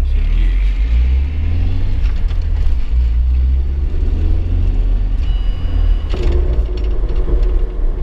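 UAZ Patriot SUV driving along a snowy forest track, heard from inside the cabin: a steady low engine and road rumble.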